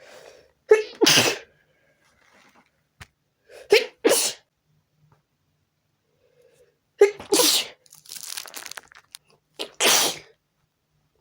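A woman's sneezing fit: four sneezes about three seconds apart, each a short voiced catch of breath breaking into a sharp sneeze, with breathing heard between the third and fourth.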